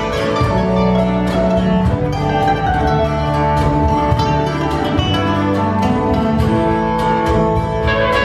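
Live acoustic band music, led by a plucked acoustic string instrument played in a steady rhythm over held notes from the band.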